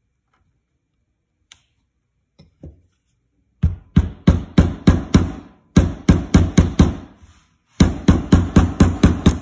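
A plastic-faced mallet tapping fret wire down into the slots of a ukulele fretboard: after a near-silent start, quick runs of sharp taps, about three or four a second, in three groups with short pauses.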